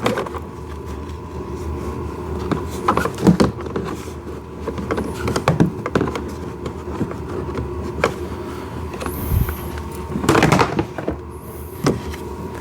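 Irregular knocks, clacks and rubbing as hard plastic parts of a ride-on toy car are handled while a front bumper is fitted. A faint steady hum runs underneath, and a louder cluster of knocks comes near the end.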